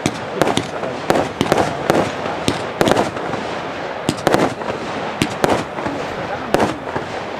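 Rubro 1.5 Minute Spectacle Box fireworks cake firing a rapid, irregular run of sharp bangs from shots and small shell bursts, several a second, with a continuous crackle between them.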